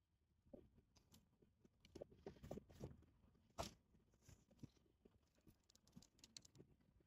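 Near silence with faint scattered rustling and light clicks, one sharper click about three and a half seconds in.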